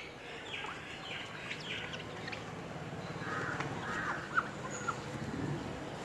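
Crows cawing several times, a louder cluster of caws near the middle, over a low, steady scrubbing of a cloth rubbed hard on a tablet screen.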